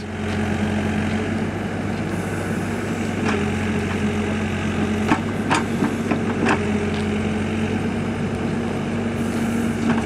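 Komatsu WB140-2 loader backhoe's diesel engine running steadily while the backhoe digs, with a few short knocks in the middle.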